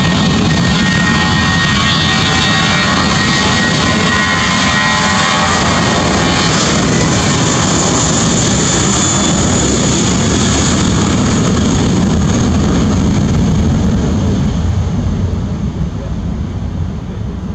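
Airbus A320-232's two IAE V2500 turbofan engines at takeoff power during the takeoff roll: loud, steady jet engine noise with a high whine over it for the first few seconds, fading over the last few seconds as the aircraft moves away.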